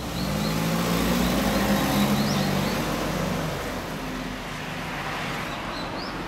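A motor vehicle driving past on the road, its engine note swelling and then fading after about three and a half seconds, over traffic noise, with small birds chirping.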